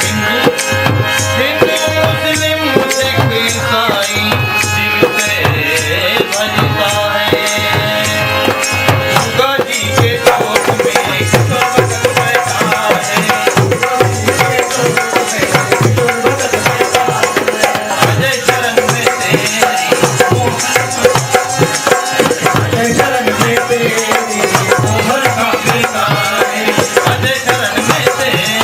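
Devotional bhajan music in an instrumental passage: a tabla-style hand drum keeps a fast, steady beat under held melodic notes, and the accompaniment changes about ten seconds in.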